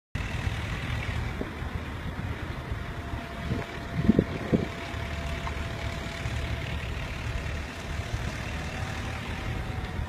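A vehicle running along a dirt road with a steady low rumble of engine and tyres, with a few brief thuds about four seconds in.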